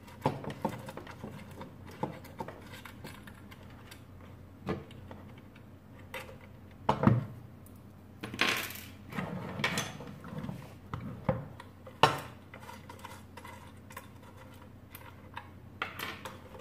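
Scattered light clicks and clinks of small metal hardware as a bolt and washers are unscrewed from an LED spotlight's plastic wall-mounting bracket and set down on a wooden table, with a few sharper knocks as the housing is handled.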